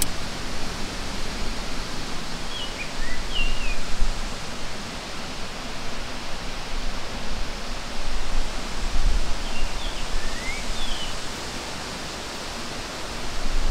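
Steady outdoor wind noise with rustling, buffeting the microphone. Two short clusters of bird chirps come a few seconds apart, one early and one near the end.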